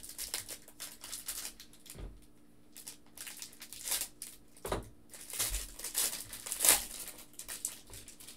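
Clear plastic wrapper of a trading-card pack crinkling and crackling in the hands as it is opened and the cards are slid out, in irregular bursts that are loudest after the middle.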